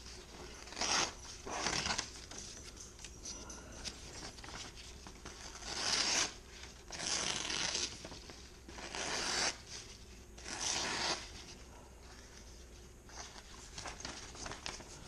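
A large steel cleaver slicing down through a sheet of paper held in the hand, about six short cutting strokes, the paper partly tearing rather than parting cleanly: a sign the cleaver's edge might need a touch up.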